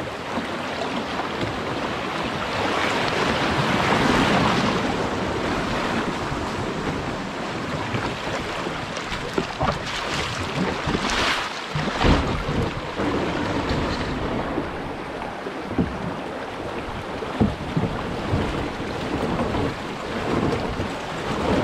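Water rushing through a shallow, rocky rapid as a canoe runs it, swelling a few seconds in, with scattered sharp knocks around the canoe.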